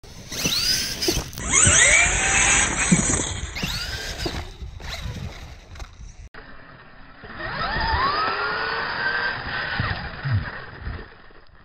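Losi LMT King Sling RC monster truck's electric brushless motor whining up and down in pitch as it accelerates and slows, in several short runs, with its tyres scrabbling in sand and gravel.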